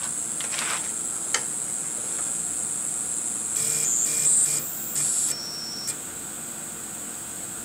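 Steady high-pitched electrical whine from the stepper drivers of a CNC-converted 9x20 benchtop lathe. From about three and a half to six seconds in come a few short stepper-motor jog moves, each a brief whine at a different pitch.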